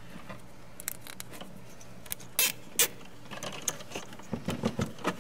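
Plastic zip tie being fastened around a bundle of wires and pulled tight: small ratcheting clicks and plastic rustling, with two sharper clicks about halfway through and a quick run of smaller clicks near the end.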